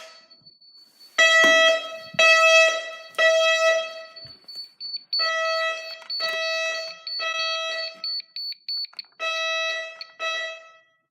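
Security system's fire alarm speaker sounding the temporal-three fire pattern: three pulsed tones about a second apart, then a pause, repeating. This signals a fire condition set off by a System Sensor i3 smoke detector under test with canned smoke. A thin high-pitched beep sounds alongside, steady at first, then turning into rapid beeping about five seconds in.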